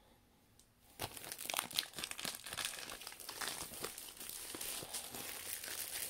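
Plastic wrapping of a vacuum-packed bed pillow crinkling and rustling as it is handled and pulled open, starting about a second in and going on as a dense crackle.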